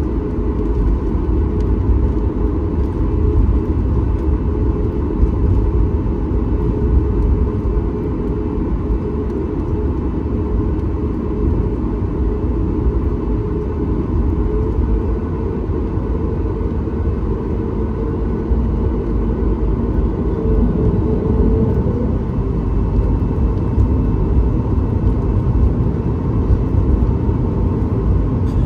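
Steady low rumble of engine and airflow noise inside the cabin of a Boeing 737 MAX 8 with CFM LEAP-1B turbofans. A faint steady hum joins in about halfway through.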